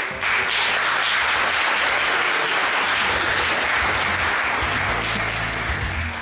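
Audience applauding steadily, with music playing underneath; the applause stops near the end.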